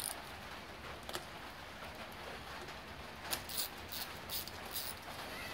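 Light metallic clicks and ticks of a socket ratchet and loosened nuts as the cylinder-head nuts of a Honda CB750 engine are taken off: a handful of separate ticks, more of them in the second half, over a faint steady hum.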